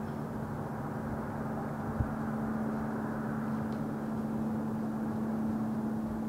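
Steady low drone of distant engine noise with a constant hum through it, and a single soft low thump about two seconds in.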